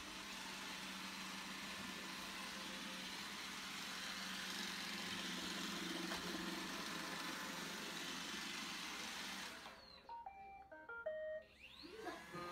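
Roomba robot vacuum running with a steady whir and hum. About ten seconds in its motors cut out and it plays a short run of stepped electronic beep tones, then the whirring starts again.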